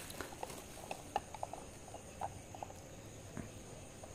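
Scattered soft clicks and light crinkles as a clear plastic action-camera hardcase is unwrapped from bubble wrap and handled.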